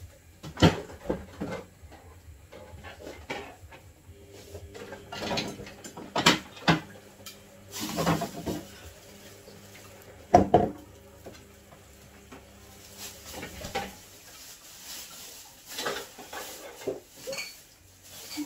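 Kitchen clatter: dishes, utensils and containers being picked up, knocked and set down, a scatter of irregular knocks with the loudest about ten seconds in.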